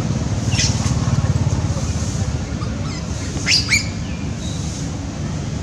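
A steady low engine drone, like a motor idling close by, with a few short high-pitched chirps above it: one about half a second in and two louder ones in quick succession about 3.5 s in.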